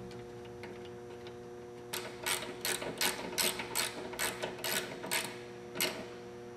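Ratchet wrench clicking in a run of about a dozen clicks, roughly three a second, starting about two seconds in and stopping near the end: tightening the hand-started carburetor mounting bolts on a lawn mower engine.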